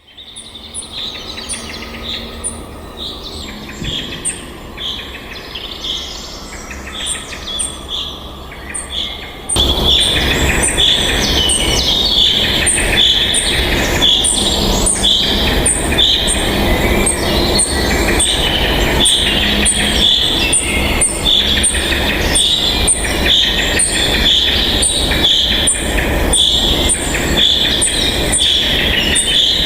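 Repeated high chirping bird calls, about two a second, over a rainforest background with a faint, faster high ticking above them. About nine seconds in, a loud steady rushing noise comes in beneath the calls and stays.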